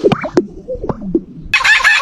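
Chickens clucking: a few short, separate calls, then about one and a half seconds in a sudden, dense run of rapid cackling.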